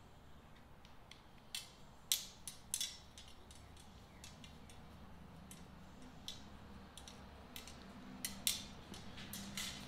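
Scattered light clicks and ticks of metal rods being screwed into the holes of a canopy frame, with a few sharper clicks in the first three seconds and a quicker run near the end. A faint steady low hum runs underneath.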